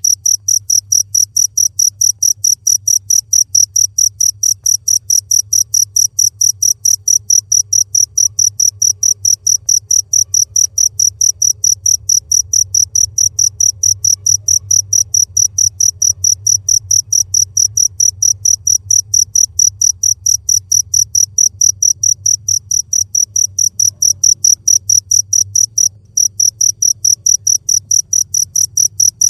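Cricket chirping continuously in a fast, even, high-pitched pulse of several chirps a second, breaking off for a moment near the end, over a faint low hum.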